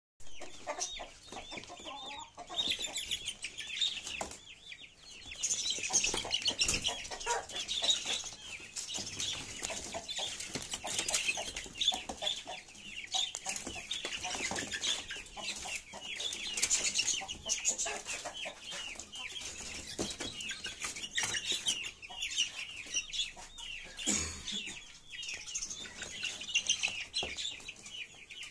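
Chicks calling without a break, many short, high peeps and chirps overlapping one another.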